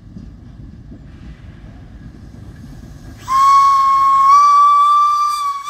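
Steam locomotive whistle sounding one long steady note, starting about three seconds in and stepping up slightly in pitch partway through, blown as the warning for a level crossing. Before the whistle, a low rumble.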